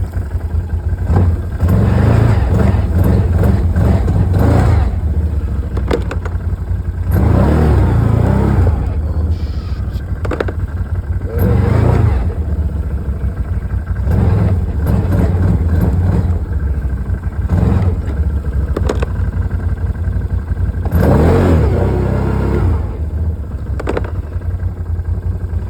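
A vehicle's engine revs hard in repeated surges, easing off between them, as it tries to push through or free itself from deep snow while stuck. A few sharp clicks or knocks come between the surges.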